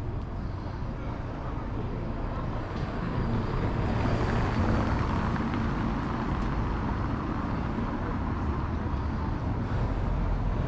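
A car driving past over cobblestones, its tyre rumble and engine growing louder about four seconds in and staying strong afterwards.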